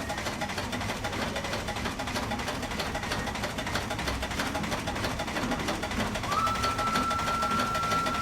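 Steam crane running steadily, a dense mechanical clatter with a faint regular beat. About six seconds in, a steady high-pitched tone joins it and holds.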